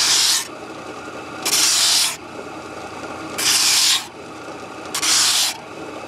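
Wooden board pressed repeatedly against a spinning belt-driven sanding drum to bevel its edge: four short sanding strokes, about one every second and a half, with the sander running more quietly between strokes.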